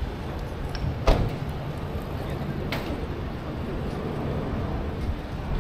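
Busy city street ambience: a steady hum of traffic and pedestrians. Two sharp metallic bangs cut through it, the louder about a second in with a brief ring and a second just under two seconds later.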